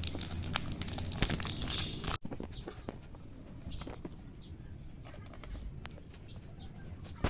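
Crinkling and rustling of handled plastic toy pieces and packaging with quick clicks, which stop abruptly a little after two seconds; afterwards only faint light taps and clicks of small pieces being handled.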